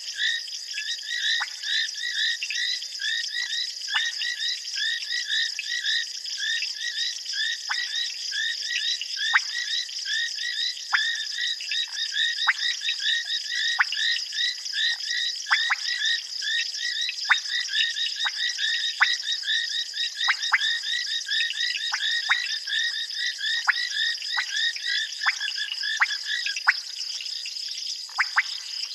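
A chorus of frogs calling at night: many short chirping calls repeated several times a second, with frequent sharp clicks among them, over a steady high-pitched insect trill.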